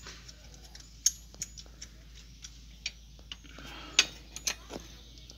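Sharp metallic clicks and clinks, a handful spread over several seconds, from a 10 mm L-shaped wrench working the exhaust header nuts at a motorcycle's cylinder head.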